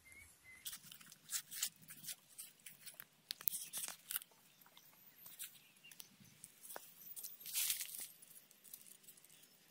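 Knife cutting and scooping the flesh out of a halved watermelon: faint, scattered crisp crunches of the blade through the wet fruit, with a longer, louder crunch about three quarters of the way through.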